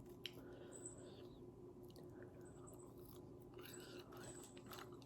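Near silence with faint chewing of food and a few small mouth clicks.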